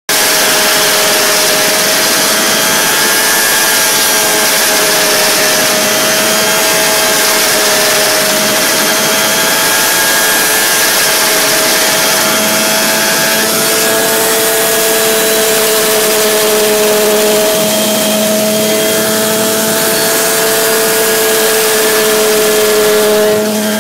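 Mini-500 helicopter's Rotax 582 two-stroke engine and drivetrain running steadily at 100% speed, heard close up in the engine bay, with a loud, even whine of two steady tones over a dense hiss. This is the condition in which the aluminium frame around the clutch shakes.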